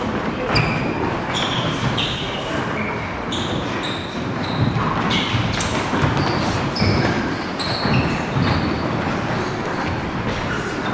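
Many short, high-pitched shoe squeaks and low thuds of footwork on a wooden gym floor, with punches and kicks landing on gloves and bodies, as several pairs spar in savate (French boxing) at once.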